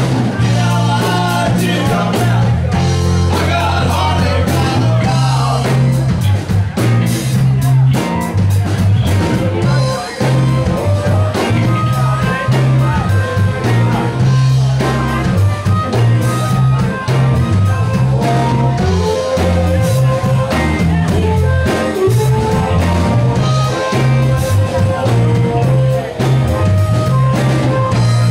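Live blues-rock band playing, with a heavy repeating bass line, drums and electric guitar, and a singer on vocals in stretches.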